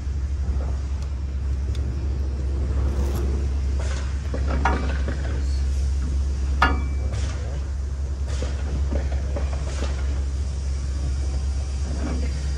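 Steady low rumble throughout, with a few sharp metal clanks and taps as the bike carrier's metal parts are handled and fitted; the clearest knocks come about a third and halfway through.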